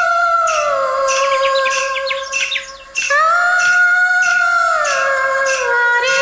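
Instrumental interlude of a Tamil film song: a sustained high melody line that slides down in pitch twice, over a steady light percussion beat. Around two seconds in, the melody drops out briefly and a flutter of quick chirp-like notes is heard before it returns.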